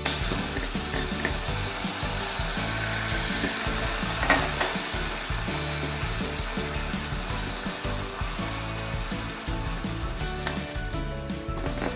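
Beef pieces sizzling and bubbling in a pan of sauce, stirred with a wooden spoon. There is a sharp knock about four seconds in.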